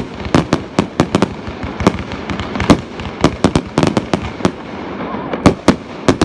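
Fireworks display: an irregular run of sharp bangs from shells bursting, often several a second, with a short lull about four and a half seconds in, over a continuous hiss and crackle.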